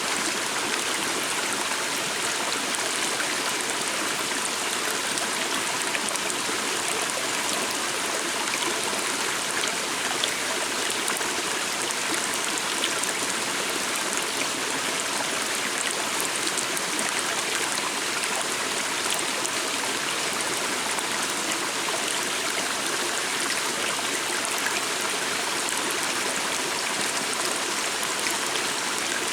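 A small stream flowing steadily, a constant rush of running water with faint trickling.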